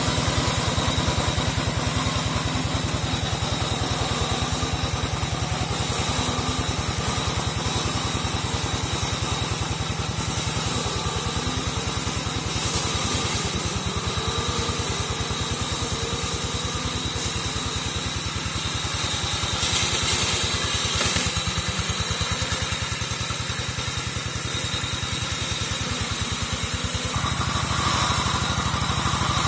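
Engine of a walk-behind brush-cutting mower running steadily as it is pushed through undergrowth, with a slight change in its sound near the end.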